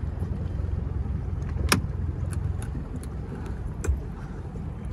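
A vehicle engine running steadily with a low rumble, broken by a sharp click about two seconds in and a second, softer click near the end.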